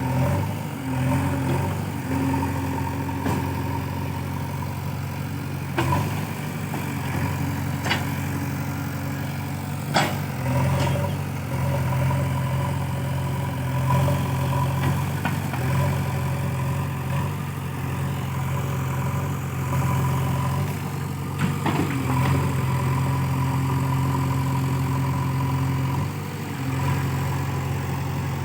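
JCB 3DX backhoe loader's diesel engine running steadily, its note rising and falling with the load. A few sharp knocks or clanks cut through it now and then.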